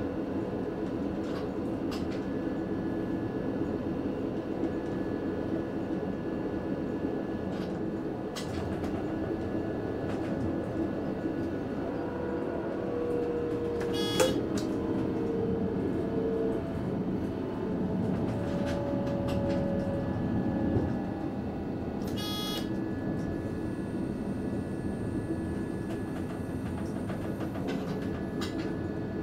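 Passenger train running, heard from the driver's cab: a steady rumble and hum. A faint whine comes in around the middle, with a few sharp clicks and a quick rattle about two-thirds of the way through.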